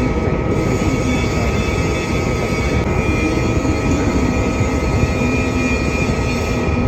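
MIG welding arc burning steadily while a vertical-up weld is run: continuous, even arc noise with a thin steady tone running through it.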